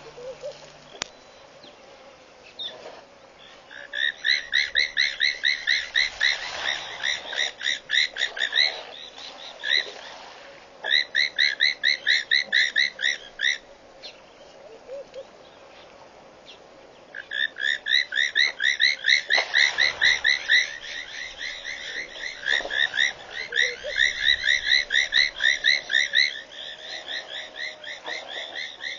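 A frog calling in long runs of rapid, high-pitched beeps, about five a second, each run lasting a few seconds with short pauses between.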